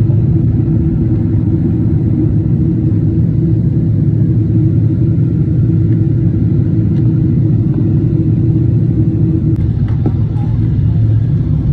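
Jet airliner cabin noise heard at a window seat in flight: a loud, steady, low rumble of engines and rushing air, with a faint click near the end.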